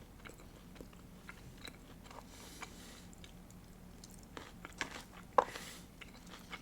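A person chewing and biting food close to the microphone, faint scattered mouth clicks with a sharper one near the end.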